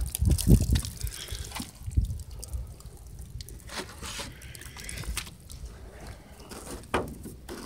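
Water trickling and dripping from bullet holes in plastic water jugs onto a wooden bench, with irregular low knocks and rubbing from the camera being handled, loudest about half a second and two seconds in.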